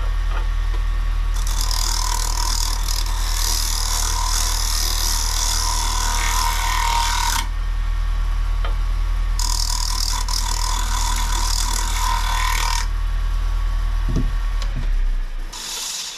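Wood lathe motor running with a maple bowl spinning, while a carbide turning tool makes two long smoothing passes across the wood, a loud scraping hiss each time, and a brief touch near the end. The lathe is then switched off and stops in the last second.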